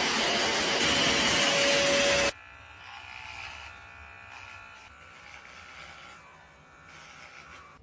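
A pet grooming vacuum runs loudly with a steady whine, then cuts off suddenly about two seconds in. After that, a small cordless electric pet trimmer buzzes quietly as it shaves the fur between a dog's paw pads.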